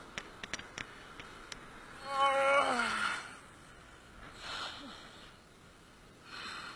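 A person's long sigh, falling steadily in pitch, followed by two hard breaths out. A few faint clicks come before it.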